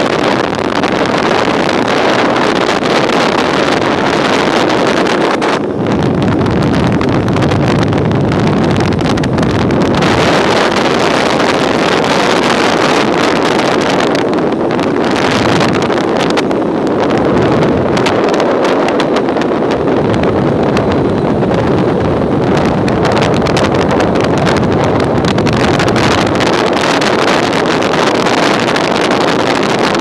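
Loud, steady rush of wind and road noise from a moving vehicle, with wind buffeting the microphone; the low rumble swells and eases in stretches.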